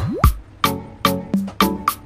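Background music with a steady percussive beat, about two hits a second. Right at the start there is a quick rising sweep and a deep bass hit.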